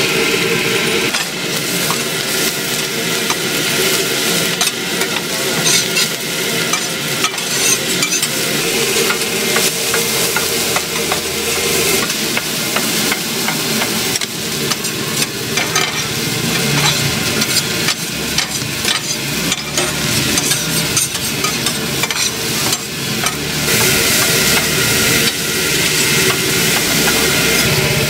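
Fried rice sizzling on a flat steel griddle while two metal spatulas scrape, chop and toss it, with quick, irregular metal-on-steel clatters over the frying hiss.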